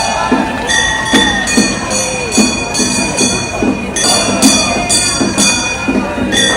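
Gion bayashi festival music: small hand-held brass gongs (kane) struck again and again in a quick rhythm, ringing bright and metallic, with a bamboo flute holding a note early on.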